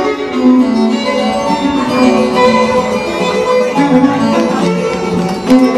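Instrumental music playing a flowing melody.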